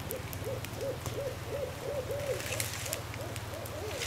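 Wood fire crackling faintly, with a run of about a dozen short rise-and-fall calls, about three a second, over a steady low hum.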